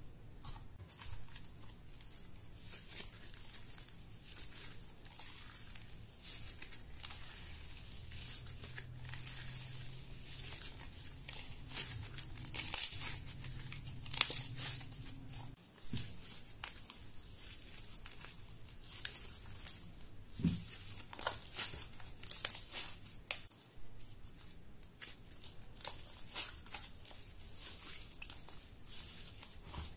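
Slime being squished, kneaded and stretched by hand, giving a continual stream of small sticky crackles and pops, denser and louder in places.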